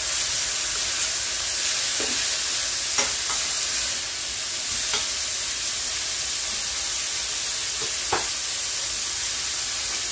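Chops sizzling steadily in a hot stainless steel frying pan, with a few light clicks of metal tongs against the pan as they are turned and lifted out.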